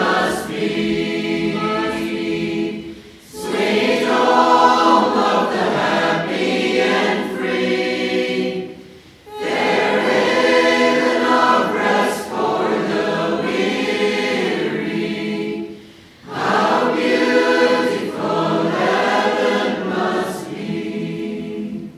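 A choir singing, phrase by phrase, with short breaks between phrases every six or seven seconds.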